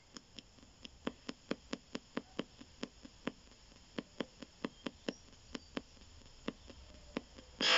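P-SB7 spirit box sweeping the AM band at 250 ms a station, heard through its external speaker as faint radio hiss broken by sharp clicks about four times a second as it jumps frequencies. A short, louder burst of hiss comes near the end.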